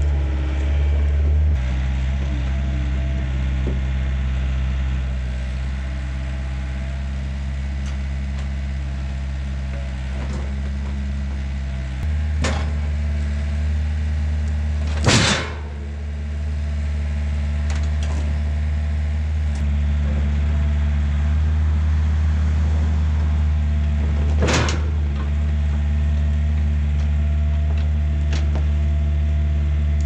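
Yanmar mini excavator's diesel engine running steadily, with a few sharp knocks as it loads logs onto a wooden trailer. The loudest knock comes about halfway, with others a little before and later.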